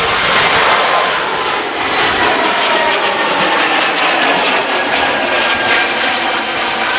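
Airbus A220's Pratt & Whitney geared turbofan engines at takeoff thrust as the jet climbs out past, a loud steady jet noise with a hiss and several whining tones that slowly fall in pitch.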